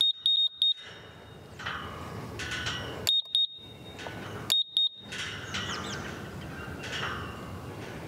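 Ghost Controls gate opener control panel beeping: three quick clusters of short, high, single-pitch beeps, at the start, about three seconds in and about four and a half seconds in.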